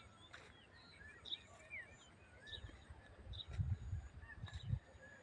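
Birds chirping repeatedly, short whistled notes and chirps. A cluster of low thumps comes about three and a half seconds in and lasts about a second.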